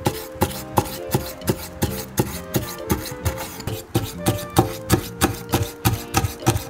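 Kitchen knife slicing gizzard shad into thin strips for sashimi, the blade knocking on an end-grain wooden cutting board in a steady rhythm of about three cuts a second. Background music plays under it.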